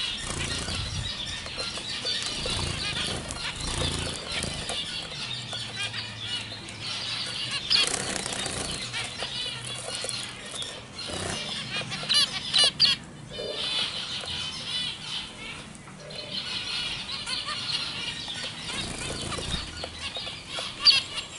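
A flock of young white zebra finches calling continuously, many short overlapping calls. A few louder sharp sounds come about halfway through.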